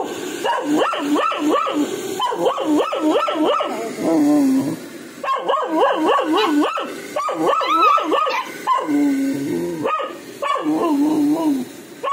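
A puppy crying: runs of short, high yelping whines that rise and fall in pitch, several a second, broken by brief pauses and a few lower, longer whimpers.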